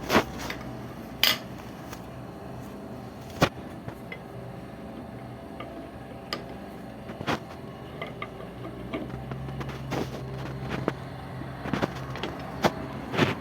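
Sharp metallic knocks and clinks at irregular intervals over a steady low machine hum that strengthens partway through, from metal being handled and machined.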